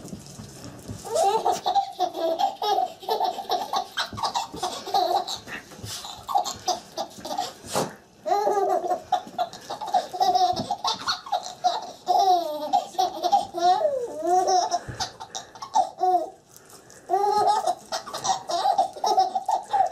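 A baby laughing in long runs of short, repeated belly-laugh bursts, set off by a dog hopping about in front of her. The laughter breaks off briefly twice.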